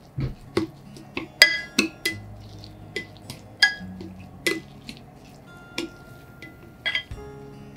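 Wooden chopsticks clinking against a glass bowl while tossing shredded Chinese cabbage with mayonnaise and corn: irregular sharp taps with a short glassy ring, about one to three a second, amid soft squishing of the dressed cabbage.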